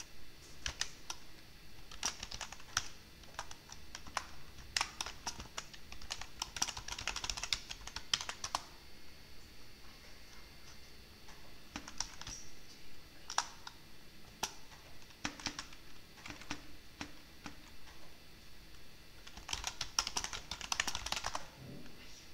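Typing on a computer keyboard: quick runs of key clicks in several bursts with short pauses between, the busiest run about two to eight seconds in and another near the end.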